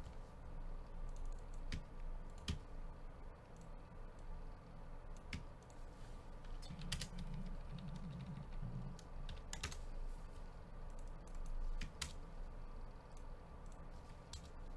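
Irregular, scattered clicks of typing on a computer keyboard over a faint steady hum.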